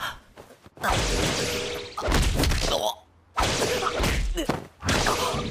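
Anime fight sound effects of heavy blows landing: thuds and whacks in four loud bursts with short gaps between them.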